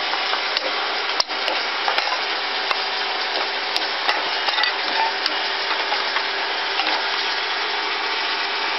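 Automatic multi-spindle wood lathe cutting round wooden blanks: a steady loud hiss of cutting over a low machine hum, with scattered sharp ticks.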